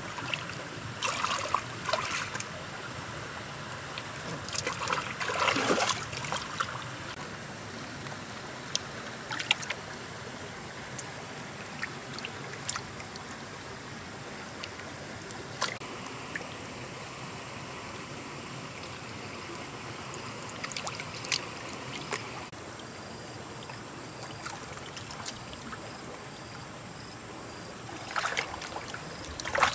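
Splashing in shallow muddy creek water as hands and feet work through it, in scattered bursts, the biggest about five seconds in and again near the end. A steady trickle of running water lies underneath.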